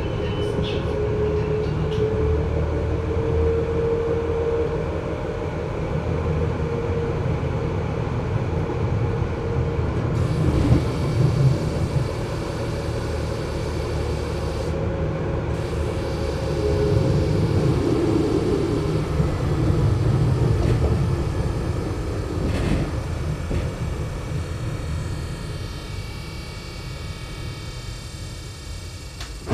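Mainz GT6M low-floor tram running, its sound muffled, with a high chirping of many steady high tones setting in about ten seconds in and carrying on. The running sound gets quieter near the end.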